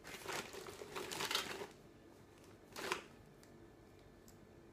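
Rustling and handling noise from rummaging among toy figures, lasting about a second and a half, then one short rustle about three seconds in.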